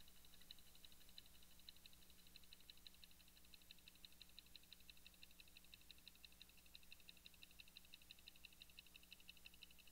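Near silence: a faint low hum with a rapid, even, faint high-pitched ticking.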